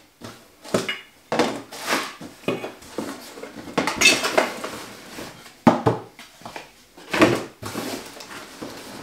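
Irregular clattering and knocking of small hard objects, with some rustling, as a box of old model-railway odds and ends is rummaged and shifted by hand.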